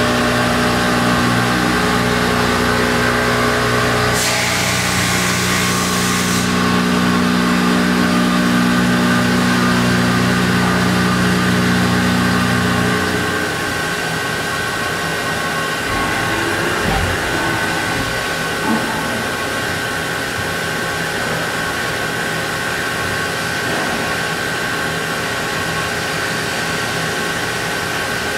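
CNC milling machine's spindle and end mill cutting 6061 aluminium: a steady machine drone with several steady tones. A high hiss comes in about four seconds in and lasts about two seconds. About halfway through, the low hum drops out and the sound gets a little quieter.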